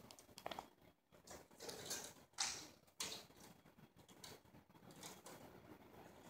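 Faint scraping and clicking from hand tools and metal parts on an open ceiling fluorescent light fixture being worked on during an LED retrofit. There are a few short scratchy sounds, two sharper clicks about two and a half and three seconds in, then only faint ticks.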